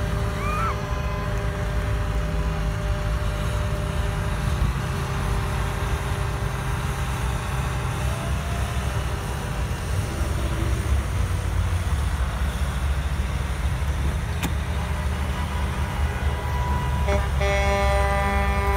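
Convoy of semi-trucks and pickups driving past, a steady low rumble of diesel engines and tyres, with truck air horns sounding at the start and again near the end.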